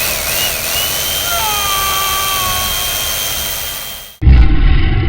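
Power-saw sound effect, a loud steady whine over dense grinding noise, standing for a bone saw cutting through a skull. It cuts off abruptly about four seconds in, and distorted electric-guitar music starts at once.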